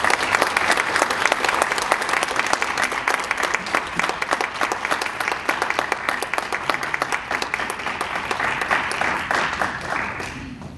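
Audience applauding: many people clapping at once, which fades out near the end.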